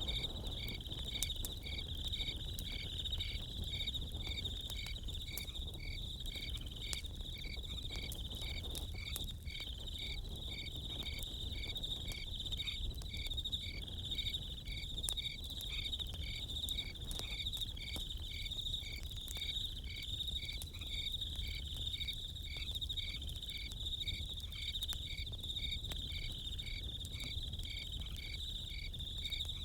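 Crickets chirping in a steady chorus, with one regular chirp about twice a second over a continuous high trill. Scattered sharp crackles from a campfire and a low rumble sit beneath.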